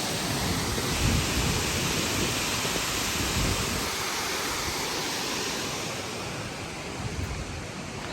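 Steady rushing roar of a waterfall, with wind buffeting the microphone in low rumbles; it eases slightly near the end.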